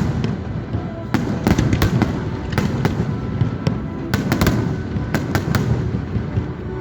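Fireworks going off: irregular sharp bangs and crackles in quick succession over a steady low din.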